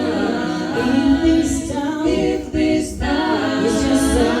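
An a cappella vocal group singing sustained backing harmonies between lyric lines, with no instruments.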